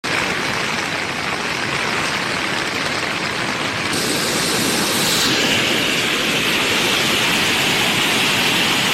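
Floodwater rushing past in a steady, noisy roar, with its tone shifting abruptly about four and five seconds in.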